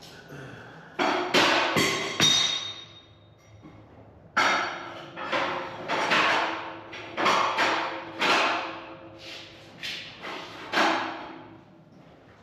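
A series of sharp ringing clanks, like steel parts of a sawmill being struck or knocked together: four in quick succession near the start, then after a short pause about one a second, each ringing on briefly at the same few pitches.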